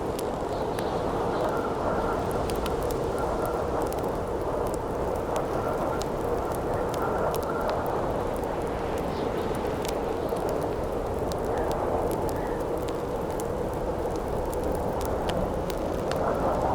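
Howling wind, a steady rush with a faint held whistle in it, over a crackling campfire that gives many small sharp pops scattered throughout.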